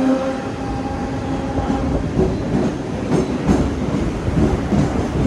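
Mumbai suburban local electric train running, heard from its open doorway: a whine dies away just after the start, then the wheels give an irregular clatter and knocking on the track.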